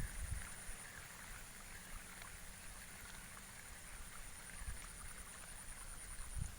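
Quiet outdoor ambience with a steady high-pitched whine and low thumps on the microphone, loudest at the start and again near the end.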